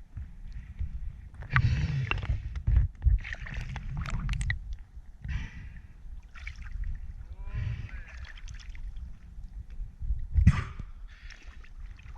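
Water splashing and gurgling around a spearfisher in the water, in irregular bursts every second or so.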